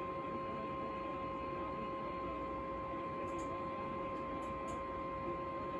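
Faint steady electronic hum made of two constant tones, one low and one about twice as high, over a background hiss, with a few faint high ticks in the second half.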